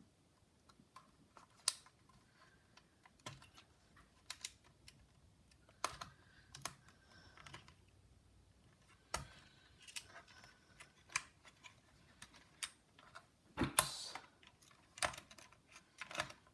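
Irregular light clicks and taps of small plastic laptop parts and cable leads being handled and fitted inside an open laptop chassis, with a louder cluster of clicks near the end.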